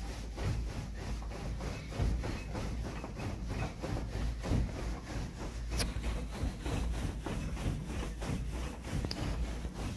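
Hotel bed creaking and rustling in a quick steady rhythm as a child jogs in place on the mattress.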